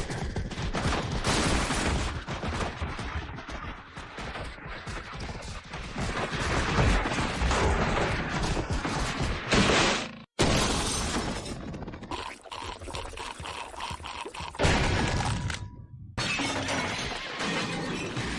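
A run of crash and breaking sound effects: dense clattering and smashing noise with many sharp hits. It cuts off abruptly about ten seconds in and again near sixteen seconds, each time followed by a new effect.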